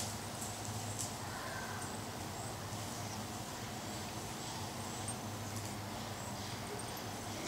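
Quiet outdoor ambience: a steady low hum with a few faint clicks.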